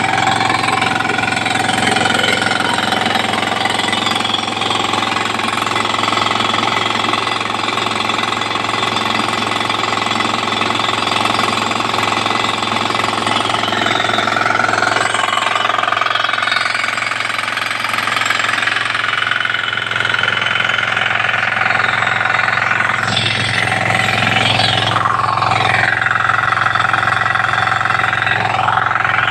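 A 9 hp self-start engine driving a 5 hp air compressor, running steadily and loudly with a fast pounding beat. In the last several seconds a higher sound sweeps down and back up in pitch.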